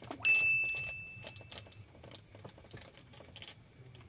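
A single high, bell-like ting about a quarter of a second in, ringing on one clear pitch and fading away over about a second and a half, with small scattered clicks of handling around it.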